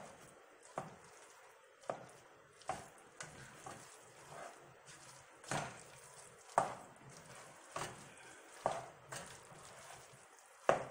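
Spatula stirring a thick mixture of cooked rice and vegetables in a stainless steel pan, with irregular scrapes and knocks against the pan, about one a second.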